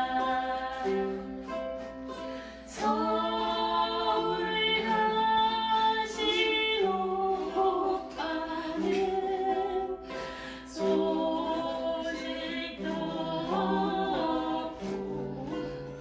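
Music: a group of voices singing a slow melody in long, held notes over a steady lower accompaniment.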